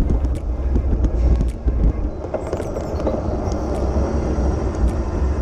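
Wind buffeting the microphone of a camera mounted on a moving road bike, a heavy rumble. Through the first two seconds the bike rattles with sharp clicks as it rolls over cracked asphalt, and these thin out once the road turns smooth.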